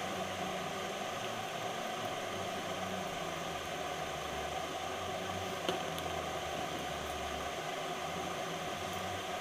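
Steady, even background hiss, with one short faint click a little past the middle.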